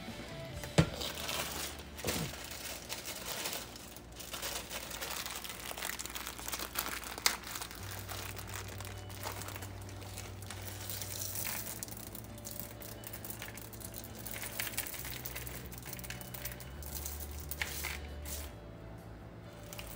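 A plastic bag of dry pinto beans crinkling as it is handled, while hands sift the hard dry beans in a plastic colander, with a few sharp clicks of beans.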